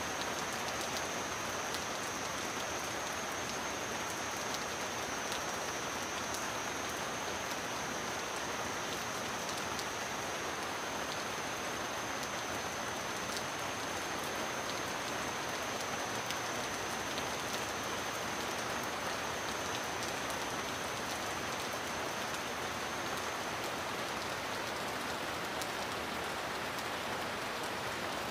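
Steady heavy rain, an even hiss peppered with sharper individual drop hits. A thin, high steady tone sits over it and fades out about three-quarters of the way through.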